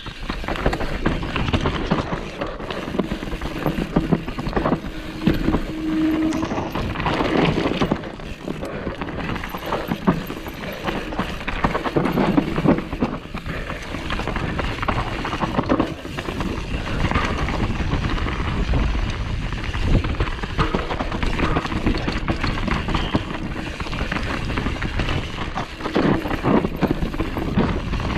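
Downhill mountain bike ridden fast down a rocky trail, heard from a GoPro on the rider: wind rushing on the microphone over tyre noise, with the bike rattling and knocking on the rough ground.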